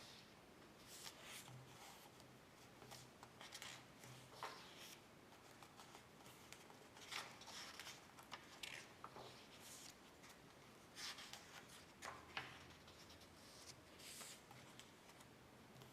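Near silence with faint, scattered small scrapes and clicks, irregularly spaced, over a low hum.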